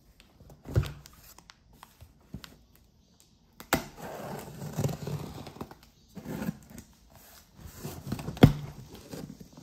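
Cardboard delivery box being opened by hand: packing tape pulled and torn, flaps scraping and rustling. There is a dull knock about a second in and a sharper one near the end.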